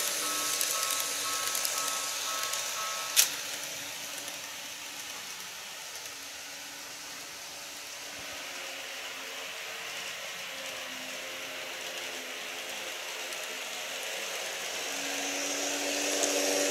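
Model electric train running on its track: a steady motor whine with the rattle of wheels on the rails as a train passes. A single sharp click comes about three seconds in. The running sound then fades to a low hum and grows louder again near the end as the next train approaches.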